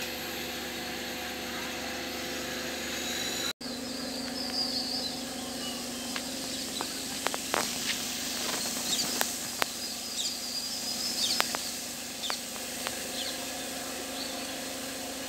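Sliced onions frying in hot ghee and oil in a large aluminium biryani pot: a steady sizzle with scattered small pops and crackles as the onions are browned. Birds chirp now and then.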